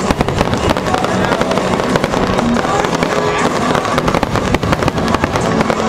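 Fireworks display: many aerial shells bursting in rapid, overlapping succession, a near-continuous run of booms and crackles with no pause.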